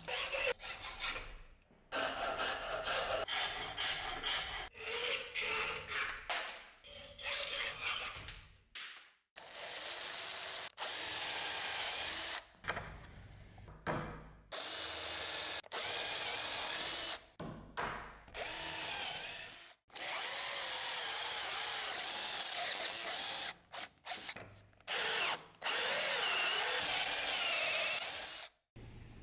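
Power drill boring holes through elk antler handle scales, in short runs that start and stop abruptly, its whine wavering as the bit bites into the antler.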